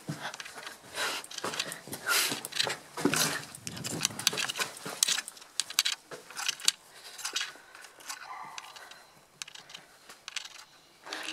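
A person's breathy, panting laughter in irregular bursts, an imitation of a bonobo's play laugh, mixed with rustling handling noise.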